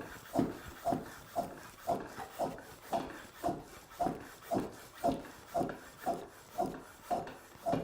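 Track pump being worked in steady strokes, about two a second, each a short rush of air and plunger rub, about fifteen in all. It is inflating a dry tubeless road tyre to seat the bead without a compressor, and no bead pops are heard. The pumping stops near the end.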